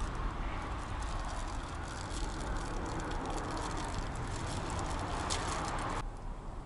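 Wind buffeting the microphone outdoors: a steady low rumble with a rushing hiss and fine crackling through the middle, cutting off abruptly about six seconds in.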